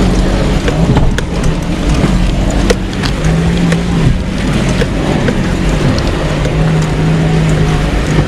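Suzuki Grand Vitara driving over a rough forest dirt track, heard from inside the cabin: the engine drones steadily at a held speed, with frequent short knocks and rattles as the vehicle jolts over the ruts.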